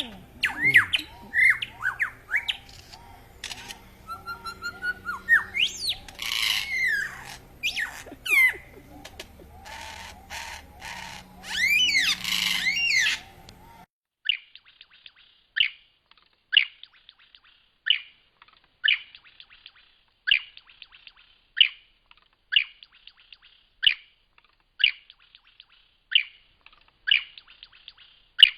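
Lyrebird singing a long mimicry sequence of varied whistles, pitch glides and rapid rattling bursts. About halfway through the sound changes abruptly to one sharp falling note repeated about once a second.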